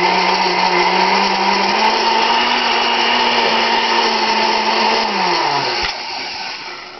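Vintage Hoover six-speed blender's motor running, its pitch stepping up twice as higher speeds are selected, then switched off about five seconds in and winding down to a stop.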